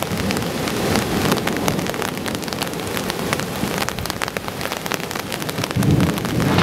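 Heavy rain falling, with many sharp drop hits close by. A deeper low rumble swells near the end.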